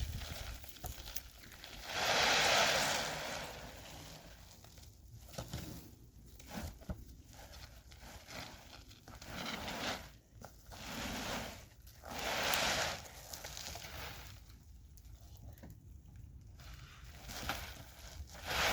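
Rustling and crinkling handling noises with scattered clicks and knocks, and two louder rushes of noise lasting about a second and a half each, about two seconds in and about twelve seconds in.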